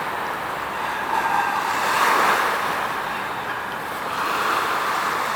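Waves washing against the shore, a steady rushing wash that swells a little about two seconds in.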